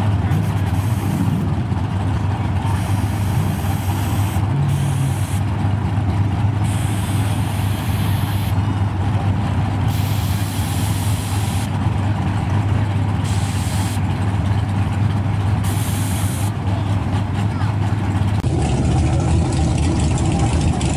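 Steady low engine drone at a drag strip, with no revving, over a noisy background and indistinct voices; the sound changes abruptly near the end.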